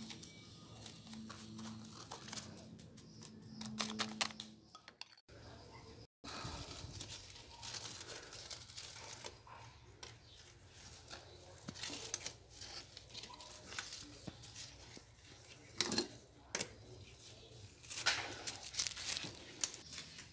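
Crinkling and rustling from hands working among potted plants and a black plastic grow bag of soil, with scattered small clicks and a few louder sharp handling knocks in the second half.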